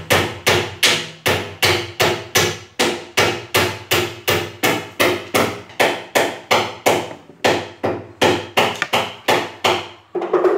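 Hand hammer striking repeatedly in a steady rhythm, about three blows a second, stopping near the end.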